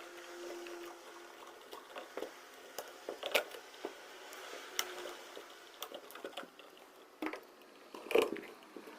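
Irregular small clicks, taps and scrapes of a small tool and copper wires being worked into the release holes of an electrical outlet's push-in terminals to free the wires, with a louder knock about eight seconds in.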